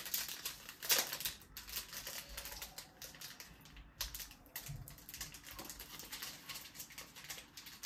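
Chocolate bar wrapper crinkling and crackling as it is opened by hand: an irregular run of quick small clicks.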